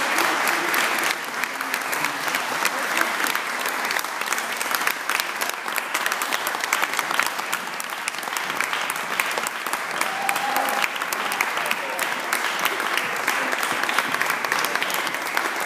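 Audience applauding: steady, dense clapping with a few voices mixed in.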